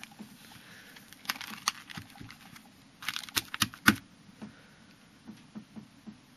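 Clear plastic sleeve pages of a card album being handled and turned: a few crinkly clicks, then a quick cluster of louder ones about three seconds in, followed by faint ticks.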